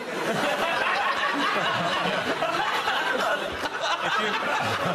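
Studio audience laughing, a sustained wash of many voices.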